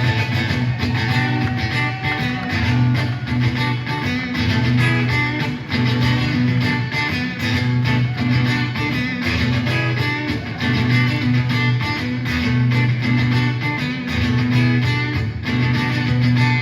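Live blues band playing an instrumental guitar passage over a repeating low bass figure.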